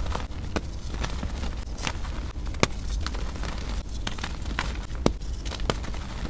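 Hands squeezing and crumbling soft reformed gym chalk, giving irregular crunches and dry crackles with a couple of sharper snaps as pieces break.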